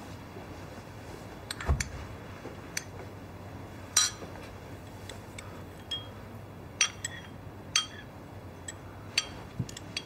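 A spoon clinking against a small porcelain bowl as it is stirred, about a dozen light, irregular clinks, with a duller knock about two seconds in.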